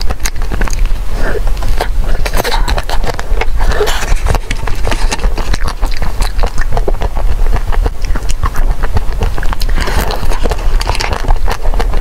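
Close-miked biting and chewing of frozen ice cream bars, a dense run of quick crackling clicks, over a steady low hum.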